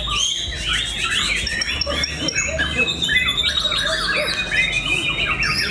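Caged white-rumped shamas (murai batu) singing together in a dense, overlapping chorus of whistles, chirps, rapid trills and sweeping notes.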